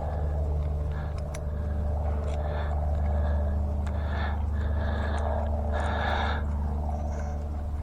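A motorcycle chain breaker being wound down onto a drive-chain link, heard as repeated short scraping, creaking strokes with a few sharp clicks over a steady low hum.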